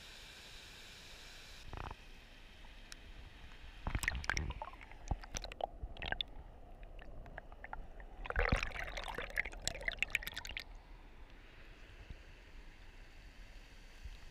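Rushing waterfall water heard through a GoPro in its waterproof housing. Just under two seconds in the rush turns muffled as the camera dips into the water. Bouts of splashing and bubbling follow, around four seconds in and again from about eight to ten seconds.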